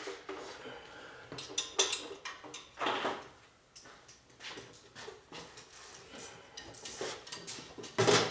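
Metal hand tools and nuts clinking and scraping against metal in irregular clanks, the loudest one near the end.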